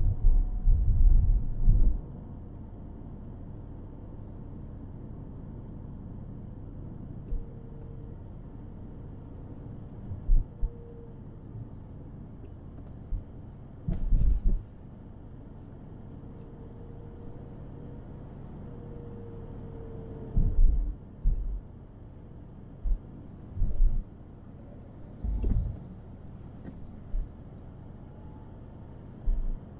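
Car driving on the road, picked up by a dashcam's microphone: a steady low rumble of road and engine noise, broken by short low thumps near the start and again about 14, 21 and 25 seconds in.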